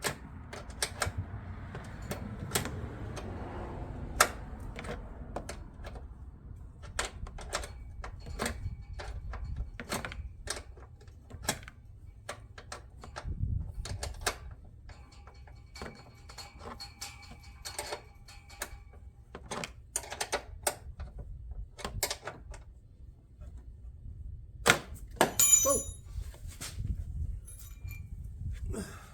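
Irregular sharp metallic clicks and clinks of a 10mm wrench or socket working on a car battery cable's fittings, about one or two a second, with a louder cluster of clicks near the end.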